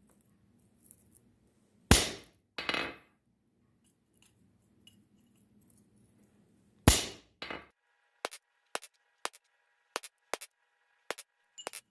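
Hand hammer striking steel on an anvil. Two heavy blows, about 2 and 7 seconds in, are each followed by a lighter one. From about 8 seconds comes a run of about nine quicker, lighter taps with a ringing metallic tone.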